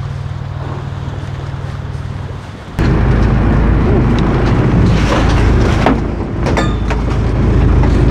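A steady low engine hum with wind, then about three seconds in a much louder, continuous rumble of a boat engine running close by, with a few knocks and clatters midway through.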